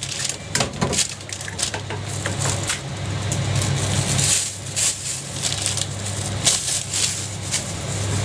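Rapid irregular clicks, taps and scrapes of cooking utensils at a jianbing griddle. A steady low engine-like hum grows louder about three seconds in.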